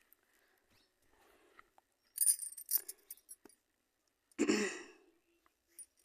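Kitchen utensils being handled: a cluster of light clinks and rattles about two seconds in, then a louder metallic clang that rings briefly about four and a half seconds in.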